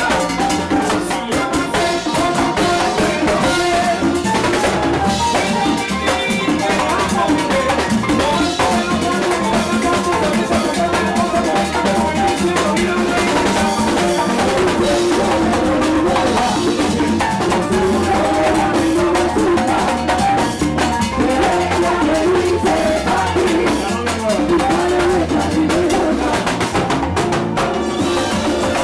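A live plena band playing at a steady, loud beat: panderos (plena frame drums) with congas and a drum kit, over trombone and keyboard.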